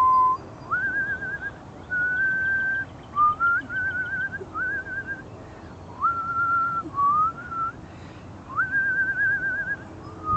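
A woman whistling a run of short phrases: each starts with a quick upward slide into a held note, and most break into a fast trill. The phrases come one after another with brief pauses between them.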